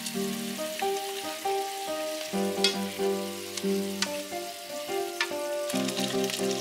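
Chopped green bell peppers sizzling in a frying pan as their sauce reduces, stirred with chopsticks that click against the pan a few times. Background music with a melody plays throughout.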